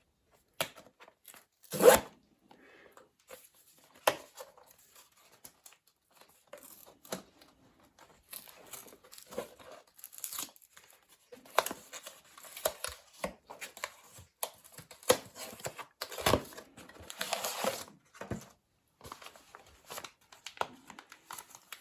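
Blind-box packaging being torn open by hand: scattered rips, crinkles and sharp snaps, the loudest about two seconds in and again near sixteen seconds, with a longer stretch of rustling just after.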